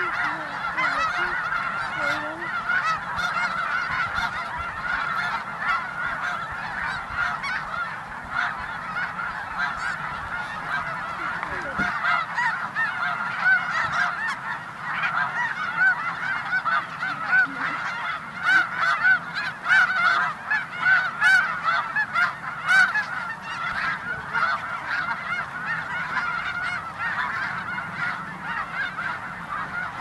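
A large flock of geese calling in a dense, continuous chorus of overlapping honks, swelling louder midway through.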